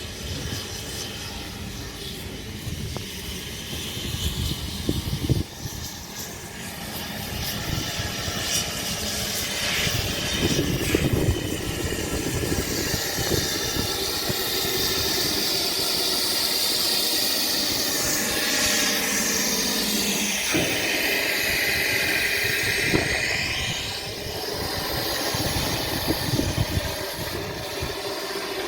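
Narrow-gauge Ffestiniog Railway train moving through the station, its noise building and holding. In the middle stretch there are high, sweeping whines of the kind that wheels on rail give.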